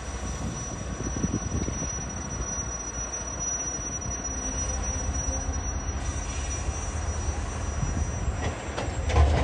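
TasRail TR-class diesel-electric locomotives running slowly as they haul a train, with a steady low engine rumble and a thin, steady high-pitched squeal that stops about eight seconds in. Wind buffets the microphone near the end.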